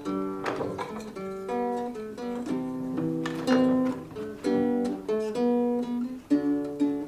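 Music played on a plucked string instrument, a melody of single picked notes mixed with a few strummed chords.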